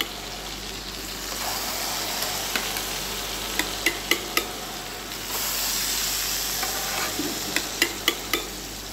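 Garlic-and-parsley butter sizzling in a frying pan as boiled lamb dumplings, still damp from the water, are dropped in one by one; the sizzle grows louder about a second in and again about five seconds in. Several sharp clicks sound in the middle and near the end.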